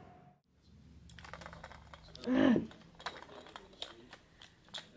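Plastic ball-track cat toy clicking and rattling in irregular small taps as a kitten paws the ball around its track. A brief vocal sound is heard about halfway through.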